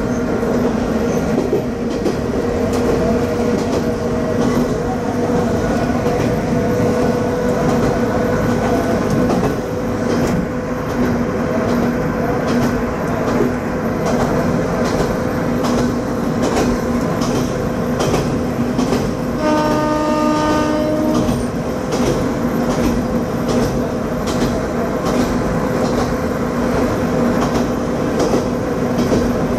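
Kanto Railway diesel railcar KiHa 532 running, heard from the cab: a steady engine drone with the clatter of wheels over rail joints. About two-thirds through, the railcar's horn sounds once for about two seconds.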